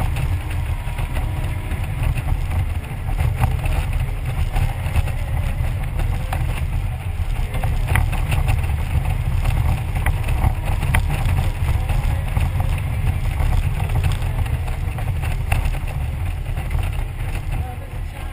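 Touring motorcycle riding steadily along a road: a continuous low rumble of engine and wind buffeting the microphone.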